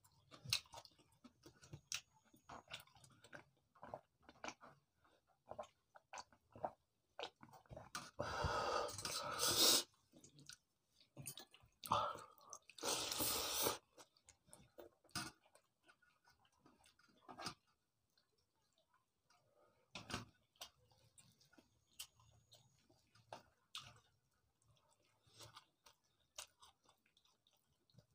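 Close-up chewing and lip-smacking as a man eats pakhal (watered rice) and egg omelette by hand, with frequent short wet mouth clicks. Twice, about a third of the way in and again just before the halfway point, a louder rushing, noisy sound lasts about two seconds.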